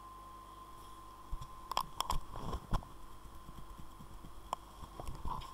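A scattered run of short clicks and knocks over a faint steady hum, bunched together in the first half and a few more near the end.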